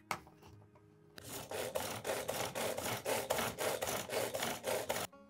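Hand-operated food chopper whirring its blades through onion, a dense rhythmic rasping of about five strokes a second that starts about a second in and stops suddenly near the end. A click as the lid goes on opens it.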